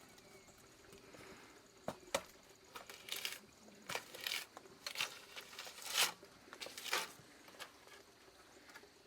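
A mason's trowel working wet mortar or stucco: a series of short scraping strokes, irregularly about once a second.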